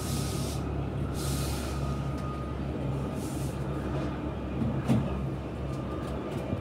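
McDonnell Douglas MD900 Explorer NOTAR twin-turbine helicopter flying close overhead: a steady low rotor and engine drone with a faint steady whine above it. A brief knock comes about five seconds in.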